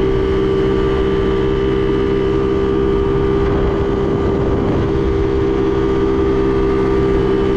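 50cc moped's single-cylinder engine running at a steady high pitch while cruising near its top speed, with wind rumbling over the microphone.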